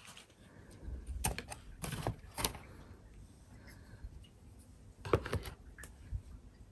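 Items being put back into a cardboard gift box: a spiral-bound planner and a candle jar set in among the tissue paper, giving a few light knocks and clatters, a cluster about one to two and a half seconds in and another about five seconds in.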